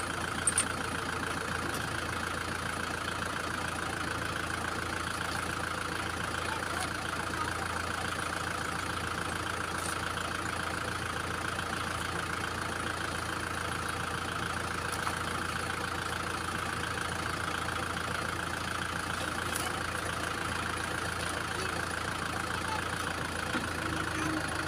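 Kubota M6040 tractor's diesel engine idling steadily, with two short sharp clicks in the first second.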